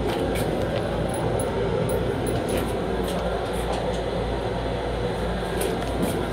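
Steady hum and hiss of an M7 electric commuter railcar, heard from inside its small enclosed restroom: the car's running and ventilation noise, with a few faint clicks and rattles.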